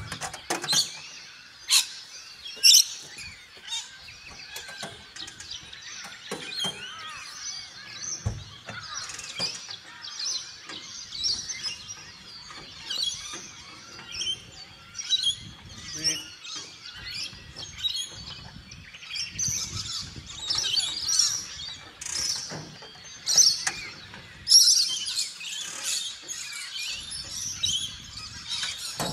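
Many birds chirping and calling in short, overlapping high calls throughout. A few knocks come from work on a camper trailer, the clearest a low thump about eight seconds in.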